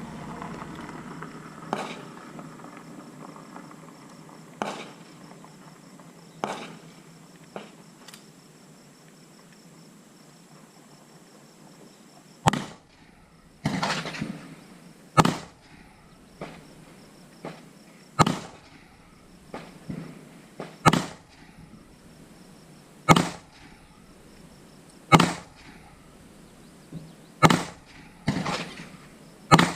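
Gunshots on a firing range, fired one at a time at an irregular pace. A few are fainter early on, and from about halfway through louder shots come every two to three seconds, with quieter shots between them.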